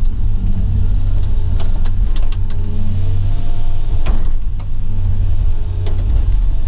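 Excavator's diesel engine running steadily under load while digging topsoil, with a few short knocks and clanks from the working machine.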